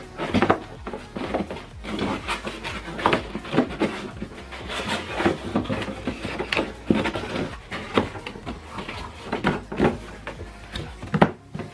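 Speaker packaging being handled and rummaged through during unboxing: irregular rubbing, rustling and small knocks.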